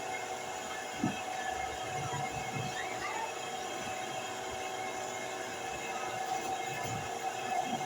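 Steady mechanical hum with a held tone, broken by a few soft low knocks.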